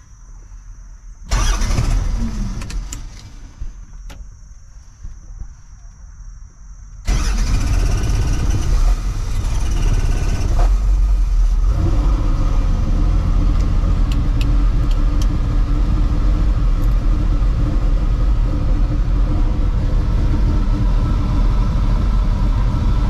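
Robinson R44 helicopter's six-cylinder Lycoming piston engine being started, heard from inside the cabin: a loud burst of cranking about a second in, then the engine catches suddenly about seven seconds in and runs loud and steady, its note filling out with more steady tones from about twelve seconds in.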